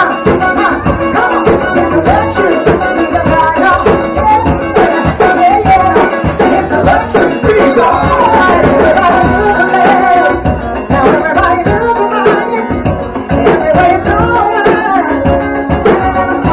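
Upbeat music with singing over a steady drum and percussion beat.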